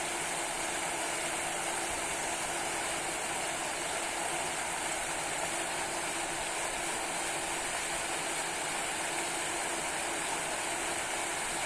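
Steady rush of running river water, an even hiss with no breaks.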